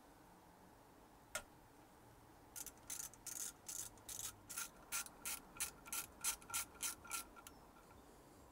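Ratchet with a T30 Torx bit clicking as it undoes the oil pump pickup bolts. There is a single click about a second in, then a steady run of clicks, about three a second, for some five seconds.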